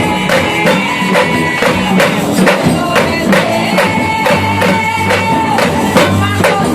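Live worship band playing gospel music with a steady beat and tambourine, with singing.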